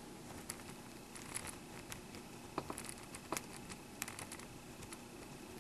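Faint scattered scratches and ticks of a ballpoint pen drawing short strokes on lined notebook paper.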